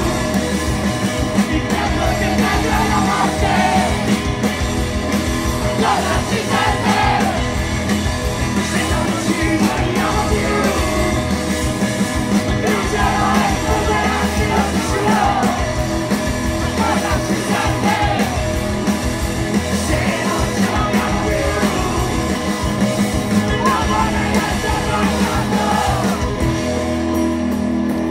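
Italian indie rock band playing live at full volume, with electric guitars and drums, and a male singer yelling the vocal into a microphone over them.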